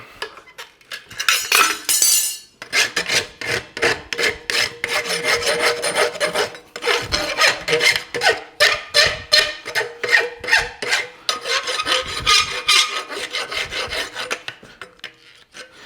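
Farrier's rasp worked in quick repeated strokes across the branch and heel of a hot forged steel horseshoe, shaping and smoothing it. The strokes begin about two and a half seconds in, after a short hiss.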